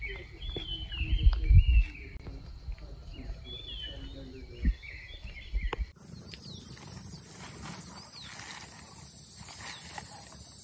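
Birds calling and warbling, with a low wind rumble on the microphone that is loudest about a second in. After a cut about six seconds in, a steady high hiss with short falling bird chirps and scattered clicks.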